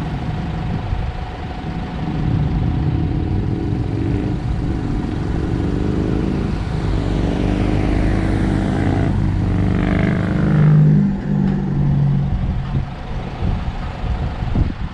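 A motor vehicle passing on the road, its engine building to its loudest about ten to eleven seconds in and then fading, over steady traffic and wind noise.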